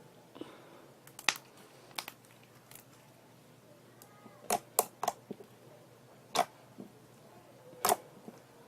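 Slime worked by hand, giving about seven sharp, irregular clicks and pops, with the loudest ones in the second half.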